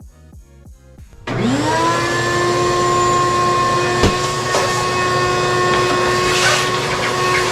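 A shop vac switched on about a second in: its motor whines up to speed and then runs steadily.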